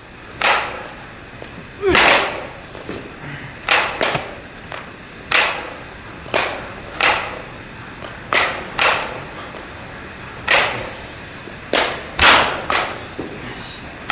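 Baseball bat hitting balls in batting practice: a dozen or so sharp cracks, each with a short ring, coming about every one to one and a half seconds.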